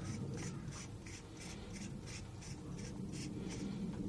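An Air Arms S410 carbine's air cylinder being turned by hand onto its threads, with soft, faint scraping strokes about three times a second as the hands grip and twist the tube.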